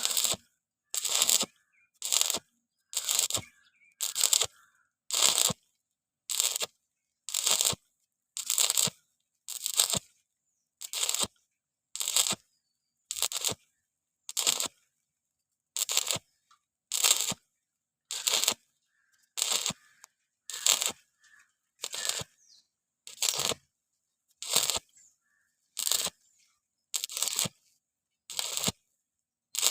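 Electric arc welding on thin 1.6 mm square pipe, the arc struck and broken again about once a second in short bursts of crackle with quiet gaps between. This is an on-off stitch technique that keeps the thin wall from burning through.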